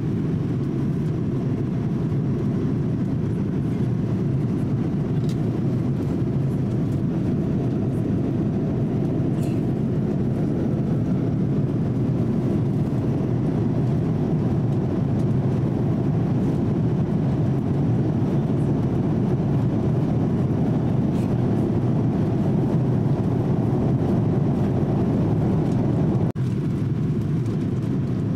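Steady airliner cabin noise aboard a Boeing 787-8 in flight: an even low rumble of airflow and engine noise, cut off for an instant near the end.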